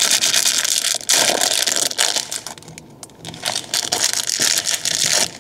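Clear plastic food wrapper crinkling as it is handled and opened, with a quieter moment about halfway through before the crinkling picks up again.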